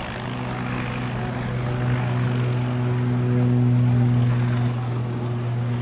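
Propeller airplane's piston engine running with a steady drone, growing louder to a peak about two thirds of the way through, then easing slightly.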